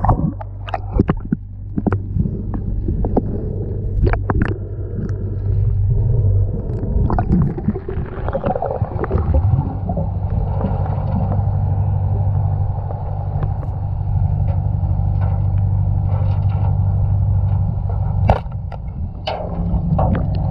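Underwater, a steady low machinery hum from a boat engine carried through the water, with scattered clicks and knocks. About 18 seconds in, one sharp crack as the speargun fires and the shaft hits the cobia.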